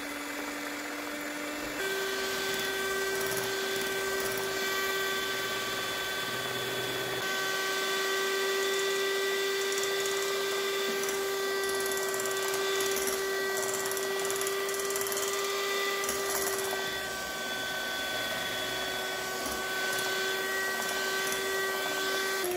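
Kenwood 250 W electric hand mixer running steadily, its beaters whipping chilled cream in a glass bowl. The motor's pitch steps up about two seconds in and holds.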